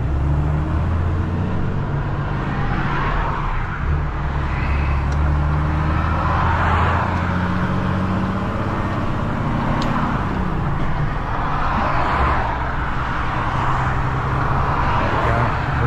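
Heavy recovery truck's diesel engine pulling under load while accelerating away with a lorry on tow. The engine note dips and shifts about four seconds in and again about eleven seconds in, as it changes gear.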